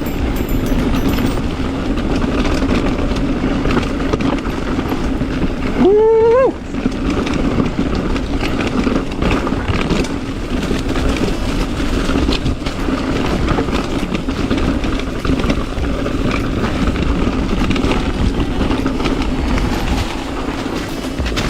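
Mountain bike descending a fast, rocky trail: a continuous rattle and clatter of the bike and its tyres over rocks and roots. About six seconds in, a brief loud squeal rises in pitch.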